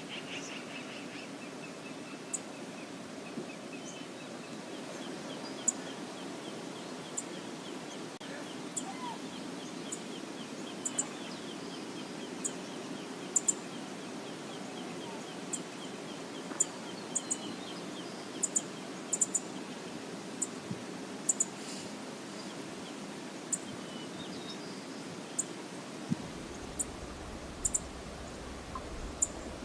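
Steady rush of flowing river water, with short high chirps dotted through it and a faint run of rapid high notes for several seconds near the start.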